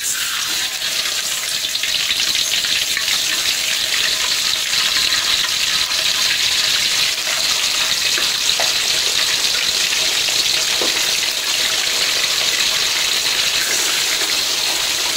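Whole mackerel sizzling in hot oil in a wok: a loud, dense sizzle that starts suddenly as the fish go into the oil, then holds steady as they fry.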